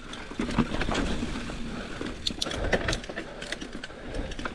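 Mountain bike rolling over a rough trail: the chain and frame rattle with a steady run of irregular clicks and knocks over a low rumble.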